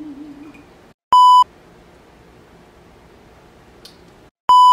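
Two short, identical electronic bleep tones, each about a third of a second long and about three and a half seconds apart, each with a moment of dead silence just before it. Before the first, a man's held hummed note trails off.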